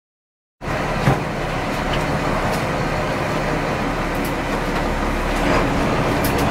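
Charter fishing boat's engine running steadily under way, heard inside the wheelhouse, cutting in about half a second in. A brief knock sounds about a second in.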